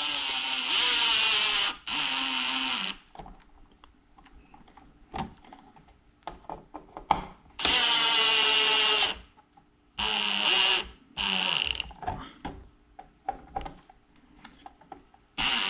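Power drill driving screws to fasten a newly wired electrical outlet, in several short runs: the motor spins up, drives, then winds down in pitch. Light clicks and handling knocks come between the runs.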